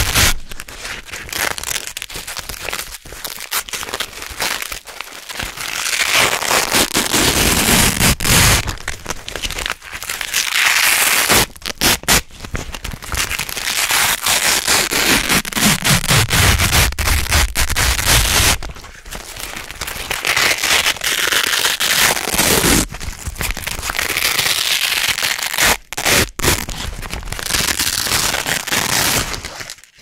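Red hook-and-loop (Velcro) strips being slowly pulled apart, a crunchy crackling rip close to the microphone. It comes in several long pulls of a few seconds each, with short breaks between them.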